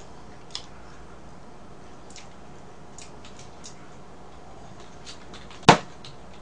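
A glass of milk set down on the table with one sharp knock near the end, after a small click and a few faint ticks.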